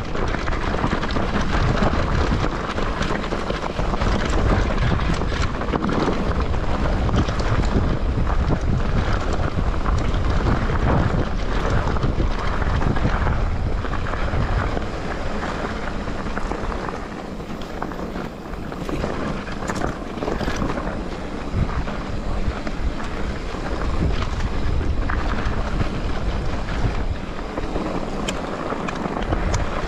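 Wind rushing over the microphone of a mountain bike's handlebar camera as it rides fast over a rough trail, with the tyres crunching on loose stones and the bike clattering over bumps. The rush eases a little for a few seconds past the middle.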